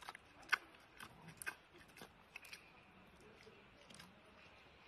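Giant panda chewing a bamboo shoot: a run of faint, crisp crunches and clicks, closest together in the first half, the loudest about half a second in.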